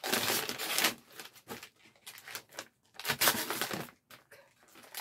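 Gift wrapping paper being torn and crumpled off a box by hand, in two loud rustling bursts about three seconds apart with lighter crinkling between.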